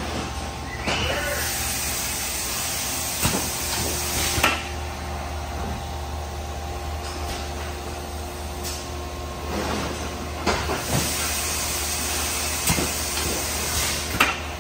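Industrial machine running with a steady hum, twice giving off a loud hiss lasting a few seconds, with several sharp clunks.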